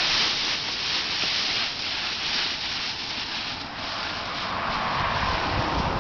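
Dry fallen leaves in a deep pile rustling and crunching steadily as a puppy runs through them and a person shuffles and kicks through them. A low rumble comes in near the end.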